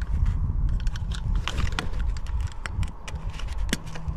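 Hand-held manual staple gun snapping staples through a roofing membrane: several sharp clacks, the clearest near the end. A low rumble runs underneath.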